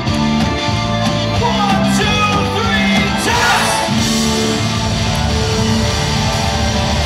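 Rock band playing a song with a singer: electric guitars, bass, keyboards and drums.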